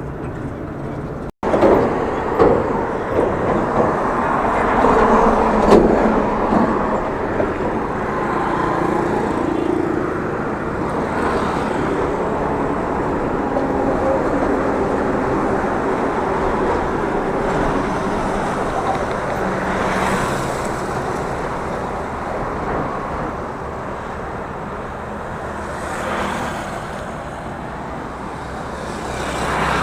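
Road traffic noise with wind rushing on the microphone: a steady rush of sound, with a few vehicles swelling past in the second half.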